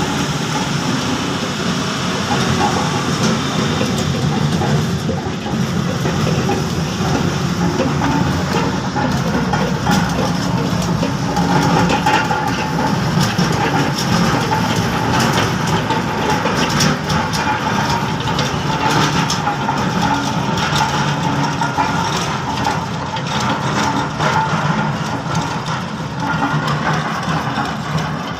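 Bulldozer's diesel engine running steadily, with frequent cracks and clanks throughout.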